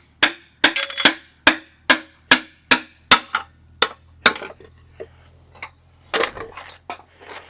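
Hammer blows on metal parts of a Big Cam Cummins diesel engine being torn down, about a dozen sharp ringing strikes at roughly two a second, then a few lighter, sparser taps over the last three seconds.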